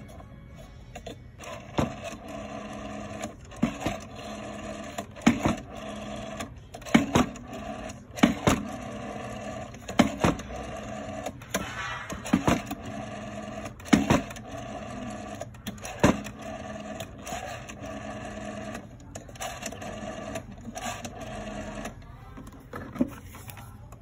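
Rotary telephone dial turned by hand and let go again and again, each time winding back into place with a run of clicks and a sharp click at the stop.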